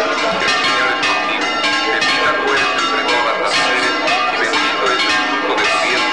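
Church bells swung full circle in the Spanish volteo style, ringing a fast, continuous peal of overlapping strikes.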